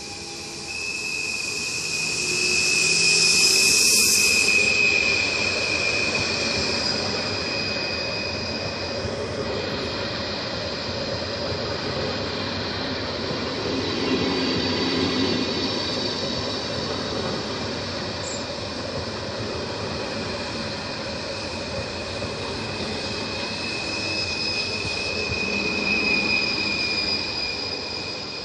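A Stadler FLIRT ED160 electric multiple unit running along the station platform. Its wheels and running gear rumble, with a long high-pitched squeal near the start and again near the end.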